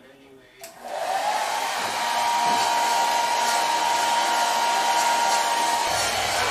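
Handheld hot-air blower switched on about half a second in: its fan motor spins up with a rising whine and then runs steadily with a rushing airflow, heating vinyl film to soften it. A low hum joins near the end.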